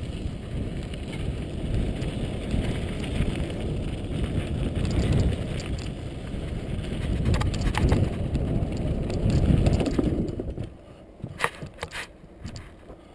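Wind rumbling on a GoPro's microphone with the bicycle rattling as it rides over a bumpy dirt jump track. The rumble drops off sharply about ten and a half seconds in, and a few sharp clicks and knocks follow.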